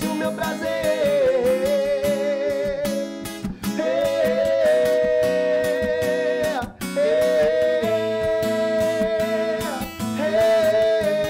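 Two male voices singing a sertanejo song in two-part harmony over an acoustic guitar. They hold long, drawn-out notes with vibrato, and the phrases break off briefly about three and a half, six and a half and ten seconds in.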